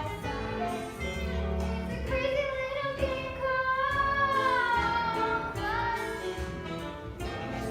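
Young voices singing a musical-theatre song over accompaniment; about three seconds in, a long held note wavers and slides downward.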